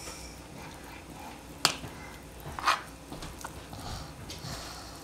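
A plastic spatula stirring shredded chicken in a plastic bowl, with a sharp tap about one and a half seconds in, a duller knock about a second later and a small tick after that.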